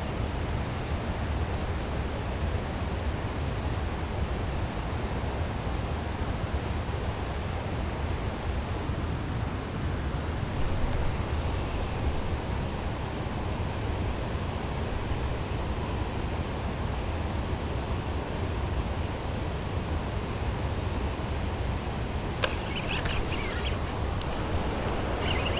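Steady outdoor background noise, a low rumble with hiss above it, and a single sharp click about twenty-two seconds in.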